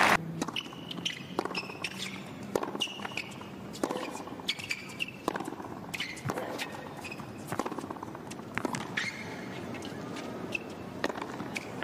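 Tennis rally on a hard court: racket strikes and ball bounces, sharp hits coming every second or so, with short high squeaks of shoes on the court between them.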